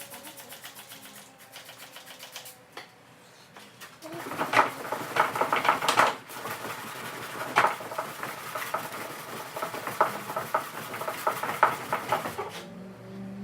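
Sandpaper being worked by hand over body filler on a fiberglass front lip, in quick rhythmic scratching strokes. They are lighter at first and much louder from about four seconds in, stopping shortly before the end.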